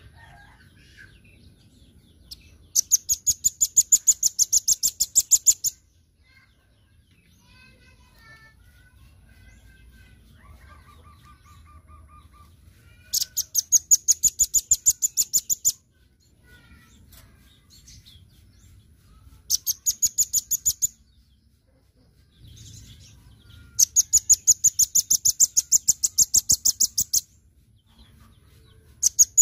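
Caged velvet-fronted nuthatch singing: loud bursts of rapid, evenly repeated sharp high notes, about ten a second, each burst lasting one to three seconds, five times with pauses between. Softer scattered chirps fill the gaps.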